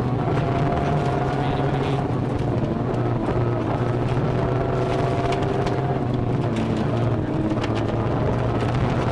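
Toyota Corolla rally car engine working hard at speed, heard inside the cabin, its pitch dipping and rising with the throttle, over a steady roar of tyres on the dirt road. A few sharp knocks come through, such as stones or bumps striking the car.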